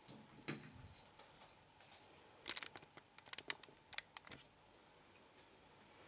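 Faint scattered clicks and light taps, coming in quick clusters about two and a half to four and a half seconds in.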